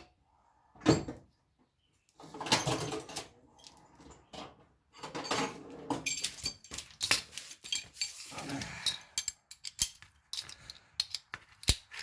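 Metal hand tools and car parts clinking, clattering and knocking irregularly while an oil filter adapter is being worked on.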